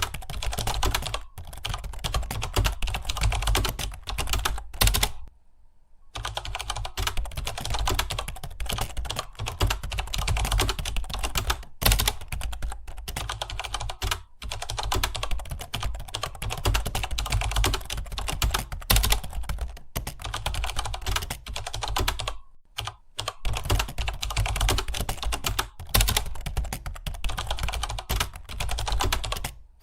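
Fast, continuous typing on a computer keyboard, many keystrokes a second. It breaks off briefly about five seconds in and again around 23 seconds.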